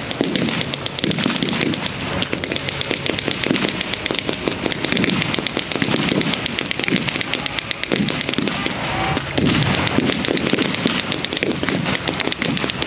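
Blank gunfire from the reenactors' rifles and other small arms: a dense, continuous crackle of overlapping shots, many a second.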